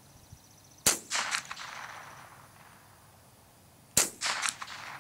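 Two shots from a Colt Stagecoach .22 LR rifle, about three seconds apart. Each sharp crack is followed within half a second by a few fainter, sharp after-sounds.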